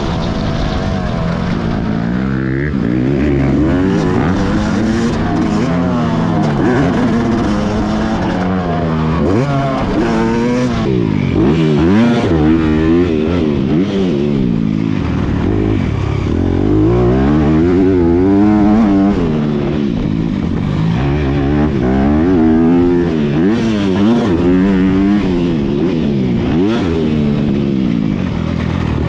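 Yamaha YZ motocross bike engine, heard close up from a bike-mounted camera, revving hard and dropping back again and again as the rider opens and shuts the throttle around the track.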